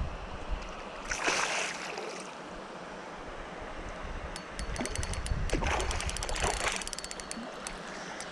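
Hooked carp splashing at the surface while being played on a spinning reel, with a run of rapid, even clicking from the reel in the middle stretch, most likely the drag giving line. Low wind rumble on the microphone.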